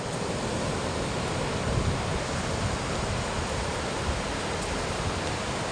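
Steady rushing of surf breaking on a beach, mixed with low wind buffeting on the microphone.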